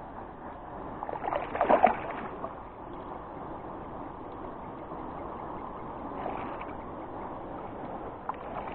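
A hooked bass splashing at the water's surface beside a kayak, loudest in a burst about a second in, with a couple of smaller splashes later.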